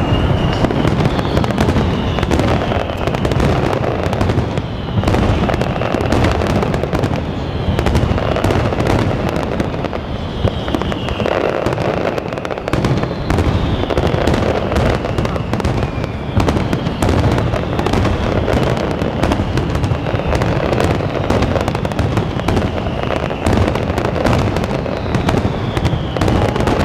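Aerial firework shells bursting in a continuous, dense finale barrage: unbroken loud booms and crackling. A high falling tone recurs every couple of seconds.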